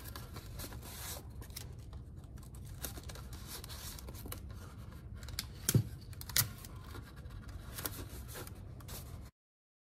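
Adhesive tape being pressed and rubbed onto a construction-paper rocket tube and fin, with paper rustling and a scatter of small clicks, two sharper ones about six seconds in. The sound cuts out abruptly near the end.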